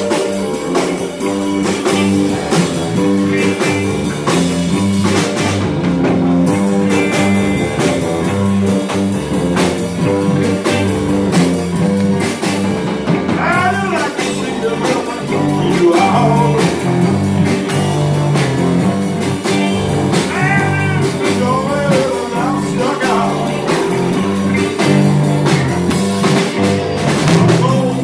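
Live band playing an upbeat swamp pop number on electric guitars, electric bass and drum kit, with a steady beat. A few sliding, bent notes come about halfway through and again later.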